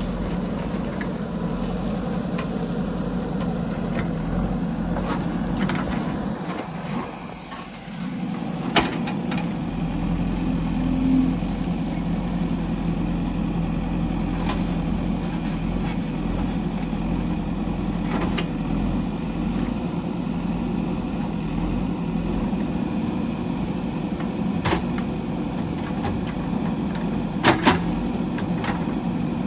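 Diesel engine of a JCB 3DX backhoe loader running steadily, dipping briefly about seven seconds in before picking up again. A few sharp knocks sound over it, two close together near the end.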